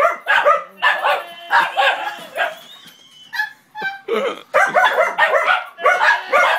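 Puppies barking rapidly and repeatedly, excited by a moving toy RC car. There are two runs of quick barks with a short pause about halfway through.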